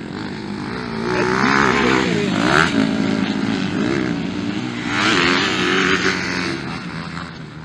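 MX2-class motocross dirt bikes revving hard around the track, the engine pitch rising and falling with throttle and gear changes. It swells loudest about a second in and again around five seconds as bikes pass close.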